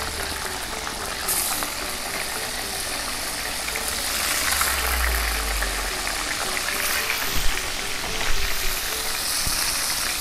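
Blocks of tofu frying in hot oil in an aluminium wok over a wood fire: a steady sizzle full of fine crackles, with a couple of louder pops late on.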